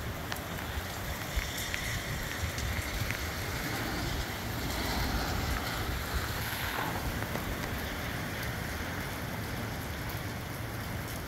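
Gusty wind with rain falling; the wind buffets the microphone with a low rumble and swells in a stronger gust about five seconds in, with scattered raindrop ticks.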